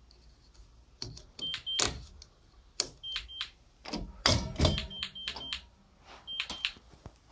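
Short paired beeps at one high pitch, repeating every second or two from a GE Simon XT alarm panel counting down its exit delay. Handling knocks and clicks come in between, with a heavier cluster of thumps about four seconds in.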